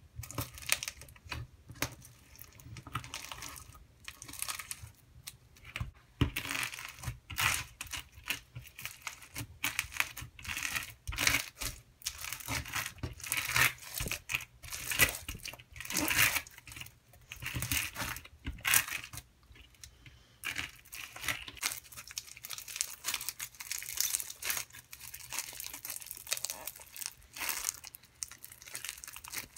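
Floam slime packed with tiny styrofoam beads crackling and crunching as hands poke, press and stretch it: an irregular run of small pops and crinkles that comes and goes with each squeeze.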